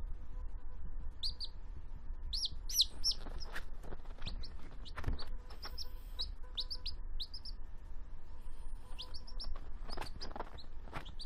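Baby chicken chick peeping: a string of short, high chirps sliding in pitch at an irregular pace, with a brief lull before a few more near the end.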